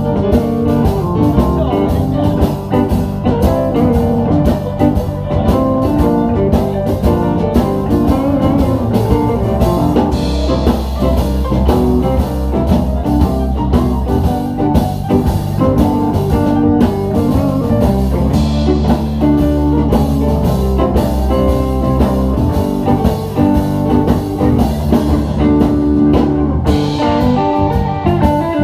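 Live blues band playing an instrumental passage: electric guitar over bass and a drum kit keeping a steady beat.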